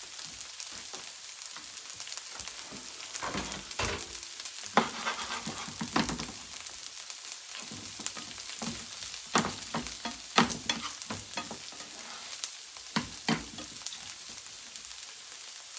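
Food sizzling and frying in a pan on the stove, with a spatula knocking and scraping against the pan a handful of times as the food is stirred.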